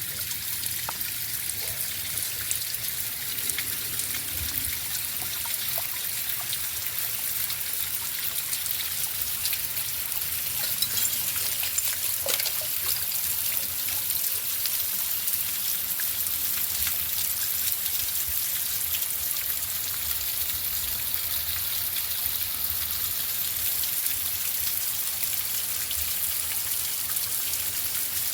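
Waterfall splashing steadily: a continuous high hiss of falling water with many small drip-like splashes through it.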